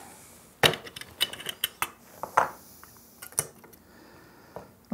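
Metal parts of a Stanley jack plane clicking and clinking as the plane is taken apart and the blade is lifted off. It is a series of sharp clicks, most of them in the first three and a half seconds, with one small click near the end.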